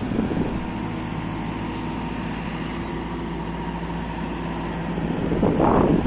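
Caterpillar 444F2 backhoe loader's diesel engine running steadily at idle, then growing louder in uneven surges near the end as it is revved.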